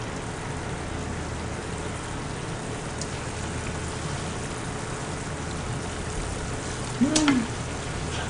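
Soy-braised beef (jangjorim) simmering in a frying pan as its sauce reduces, a steady sizzling hiss. About seven seconds in, a short rising-and-falling vocal exclamation as she reacts to a hot taste.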